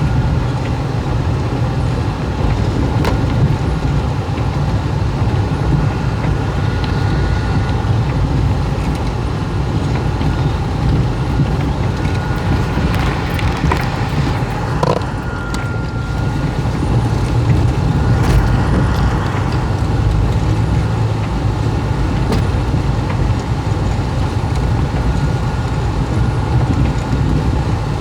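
Steady street traffic noise of cars and trucks passing, a continuous engine and tyre rumble, with a brief high whine about halfway through.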